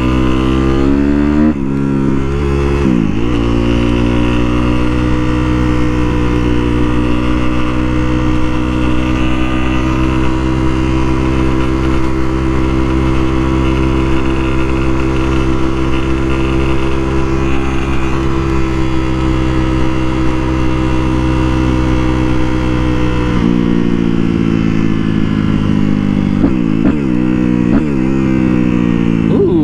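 Sportbike engine being ridden hard. It accelerates and shifts up a gear about a second and a half in, holds steady revs for about twenty seconds, then from about twenty-four seconds in the revs drop and rise quickly several times: crisp downshifts.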